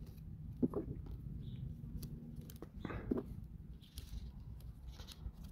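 Faint clicks and crackles of hands pressing on and handling a sheet of laser-cut plywood model pieces. There are two brief louder noises, one just under a second in and one about three seconds in.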